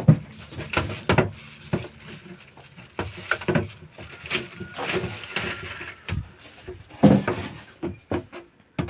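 Washing-machine packaging being handled and opened: an irregular series of knocks and thumps with rustling and scraping in between, the loudest about a second in and about seven seconds in.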